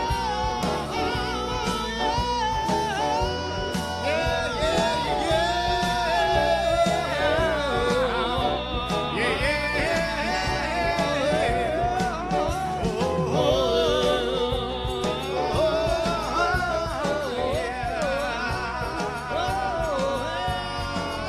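A song: a singer holding long notes with a wide, wavering vibrato over instrumental accompaniment.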